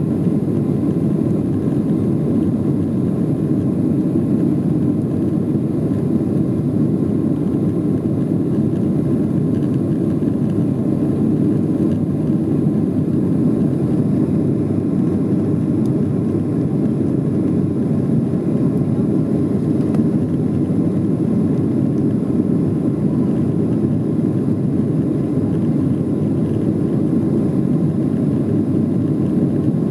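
Steady cabin noise of a Boeing 737-600 climbing after takeoff: its CFM56-7B jet engines and the rushing airflow, heard from inside the passenger cabin as an even, low rumble.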